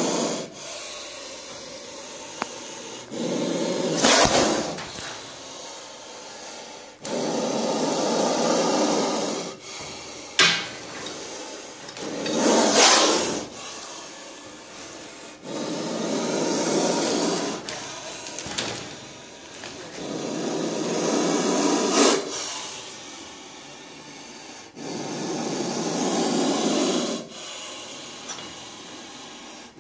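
Indian spectacled cobra hissing loudly in long breaths: about six hisses of two to three seconds each, every four to five seconds, with quieter intakes between, and a few of them opening with a sharp forceful burst. It is a defensive hiss from a snake that feels threatened.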